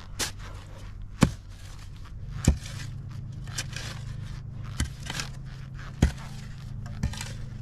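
Shovel blade striking and scraping in wet, sandy dirt around a buried sewer pipe, a sharp hit roughly every second, over the steady low idle of a Sany mini excavator's engine.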